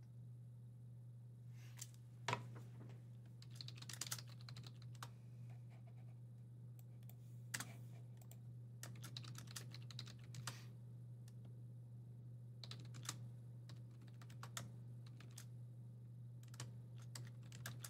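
Faint typing on a computer keyboard: irregular key clicks over a steady low hum.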